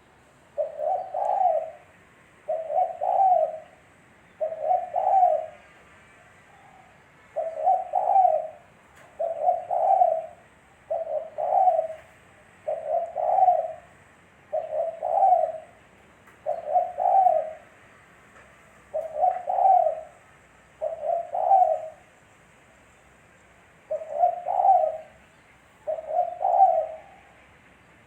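Spotted dove (tekukur) cooing: a low, several-note coo phrase about a second long, repeated roughly every two seconds, with a few slightly longer pauses between phrases.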